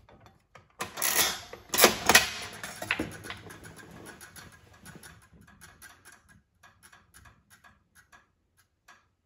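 Rock-Ola 'Official Sweepstakes' 1930s trade stimulator being played: the mechanism sets off with a loud metallic clatter for about two seconds, then the horse wheel and its roulette ball spin with clicking that slows, fades and thins out until it stops near the end as the wheel winds down.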